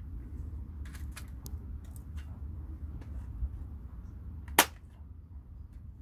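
A staple gun firing once, a single loud, sharp snap about four and a half seconds in, after a few fainter clicks and rustles of handling, over a low steady rumble.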